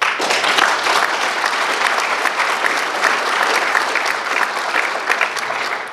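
Audience applauding: a dense mass of hand claps that starts abruptly and dies down near the end.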